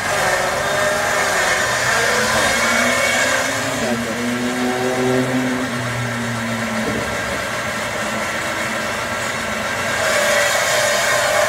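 A motor running steadily, its pitch drifting up and back down in the middle.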